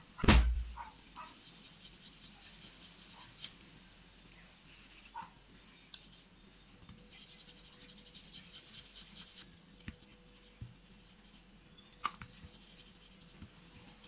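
Wooden rolling pin rolling out dough on a stone board: soft rubbing and scraping strokes, with a single thump just as it begins and a few light knocks later.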